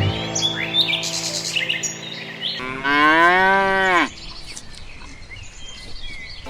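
A farm animal's single drawn-out call, about a second and a half long, starting near the middle. It rises slightly and then drops sharply in pitch as it ends. Birds chirp in the background.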